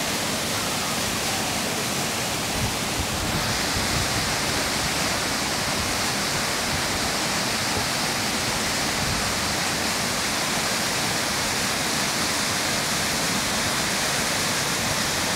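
Large waterfall: a steady rush of falling water. The hiss grows a little brighter about three seconds in.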